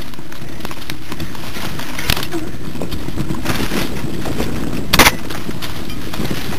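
Mountain bike riding over a rough trail: a steady rumble and rattle from the tyres and the jolting camera, with sharp knocks as the bike hits bumps, the loudest about five seconds in.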